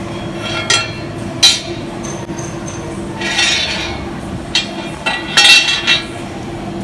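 Steel tube frame pieces clinking and clattering against a steel welding table as they are set in place for welding: a handful of sharp metallic knocks that ring briefly, the loudest about one and a half seconds in, and two short rattling clatters later on. A steady low hum runs underneath.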